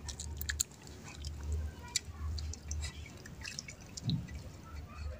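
Whey splashing and dripping as vinegar-curdled milk is poured from a steel pot into a muslin-lined strainer, with scattered small splashes and clicks over a low hum.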